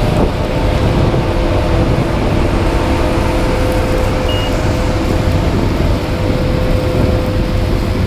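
Claas Lexion 650 combine harvester running steadily: a loud, even mechanical rumble with a steady hum held over it.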